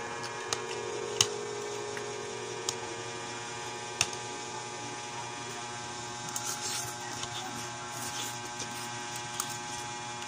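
Eating sounds: a few sharp clicks of chopsticks and a spoon against the bowl, then noodles being lifted and slurped in the second half, over a steady electrical hum.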